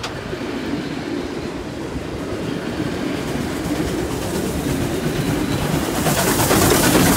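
Red wooden passenger carriages of a steam train rolling past with a steady rumble and wheel clatter over the rail joints. About six seconds in, the K class 2-8-0 steam locomotive K183 draws alongside and a loud hiss of steam and exhaust joins in, the sound growing louder.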